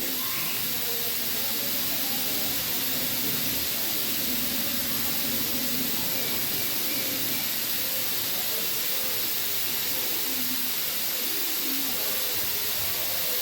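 A steady, loud hiss that starts suddenly and holds level throughout, with faint voices underneath.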